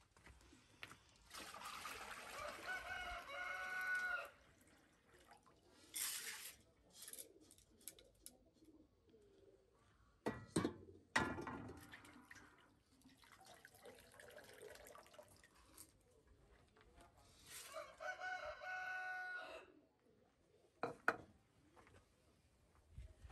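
A rooster crowing twice, each crow a long call of two to three seconds, the first a couple of seconds in and the second about two-thirds of the way through. In between come a few sharp clatters of dishes and a metal basin.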